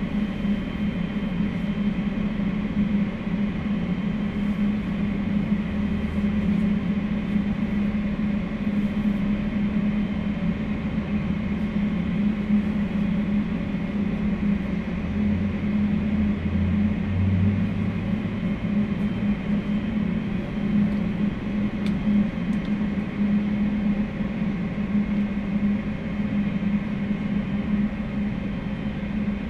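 Steady droning hum of jet aircraft and ground equipment on an airport ramp as a twin-engine widebody airliner is pushed back from the gate by a tug, with a deeper rumble swelling for a few seconds past the middle.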